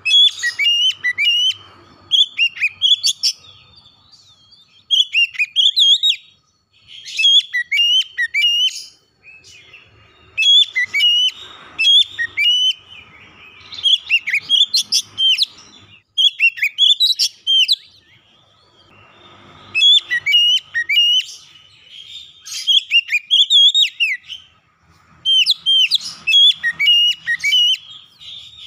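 Oriental magpie-robin (kacer) singing: a string of short, loud phrases of whistled notes that glide up and down, one every two to three seconds with brief pauses between.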